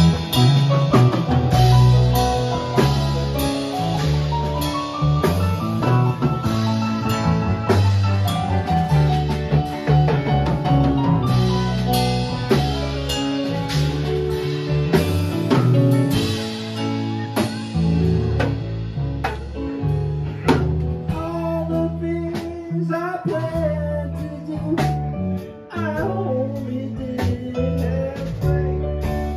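Live band playing: a drum kit keeping a steady beat under electric bass, electric guitar and keyboard.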